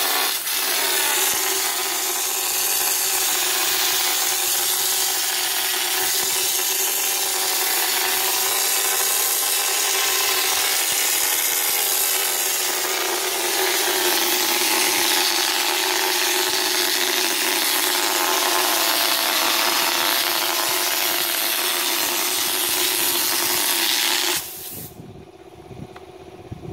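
Hopper spray gun running on compressed air, blowing texture coating onto a wall: a loud, steady hiss that cuts off about 24 seconds in, leaving a quieter low rumble.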